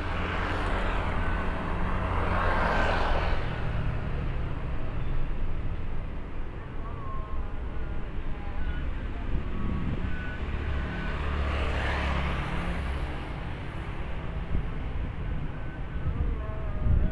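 Road traffic going by: a steady low rumble, with two vehicles passing, one about two seconds in and another about twelve seconds in, each swelling up and fading away.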